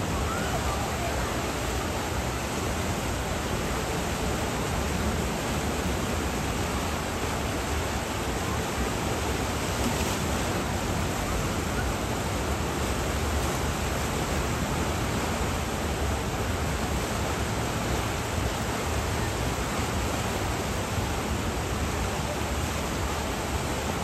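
Steady rush of churning water in a river rapids ride's channel, even and unbroken.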